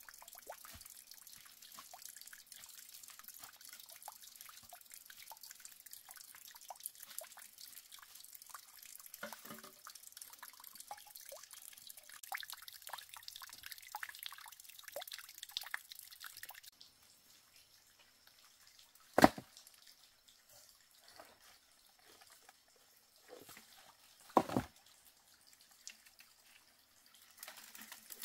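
Water dripping and trickling as a dense patter of small drops, which stops about 17 seconds in. After that come two sharp knocks, about five seconds apart; these are the loudest sounds.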